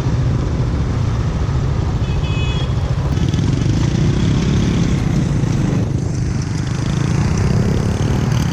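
Motorbike on the road: a steady low rumble of engine and wind on the microphone, with a brief high tone about two seconds in.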